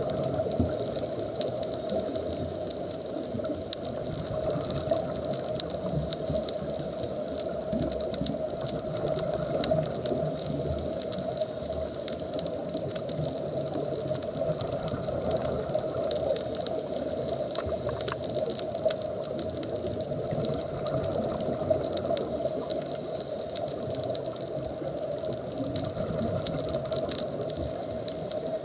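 Steady underwater ambience heard through an underwater camera housing: a constant hiss and hum with faint scattered clicks.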